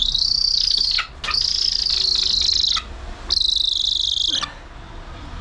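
Male golden eagle calling: three long, high-pitched screams with a buzzy edge, separated by short gaps.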